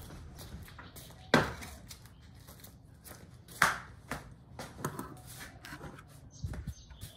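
Wooden chair set down on brick paving: two sharp knocks about two seconds apart, among lighter taps and clicks.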